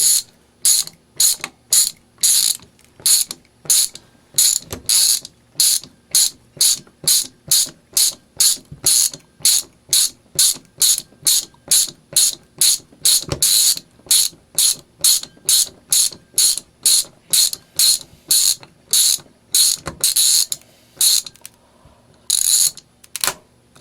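Ratcheting screwdriver driving a screw into wood, its pawl clicking in short rattling bursts about twice a second as the handle is swung back and forth.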